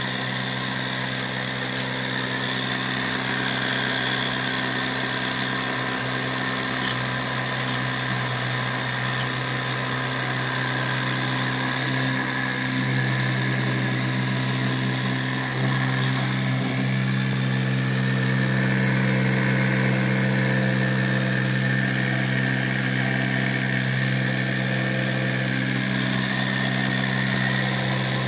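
Universal motor rewired as a pulse motor, driven by a switching circuit, running steadily with a hum and whir; it gets slightly louder about halfway through.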